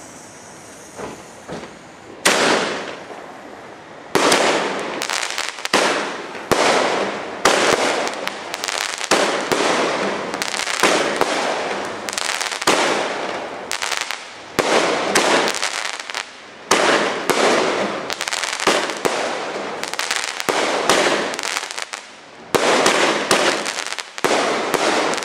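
Aerial fireworks exploding in a rapid barrage. After two quieter seconds a sharp bang goes off, then the reports come one or two a second, each dying away before the next.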